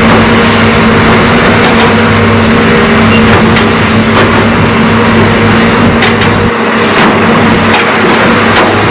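Hitachi hydraulic excavators' diesel engines running steadily as they dig and swing to load a dump truck, with scattered sharp clanks. The low drone eases for a couple of seconds after the middle.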